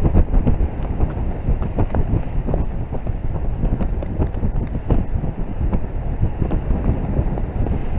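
Wind buffeting the microphone in paragliding flight: a steady, gusting rumble of airflow, with small ticks scattered through it.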